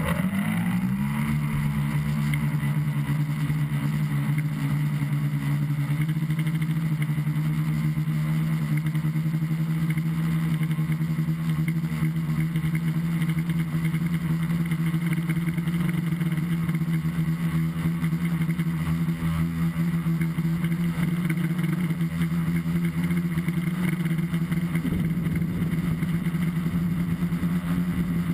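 A tricopter's three electric motors and propellers, heard from the onboard camera, spin up over the first second and then run with a steady buzzing drone through takeoff and flight.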